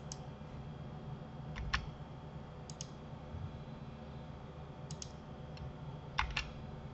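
Computer mouse and keyboard clicks while editing: about five quick press-and-release pairs of clicks, spaced a second or so apart, over a steady low hum.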